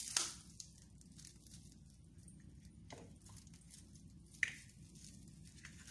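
Dried verbena bundle being bound tightly with cotton thread: faint rustling with a few soft crackles of the dry stems, the sharpest about four and a half seconds in.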